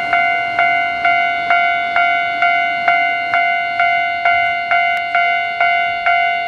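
Railway level crossing warning bell ringing with evenly spaced metallic dings, about two a second, each ringing on until the next.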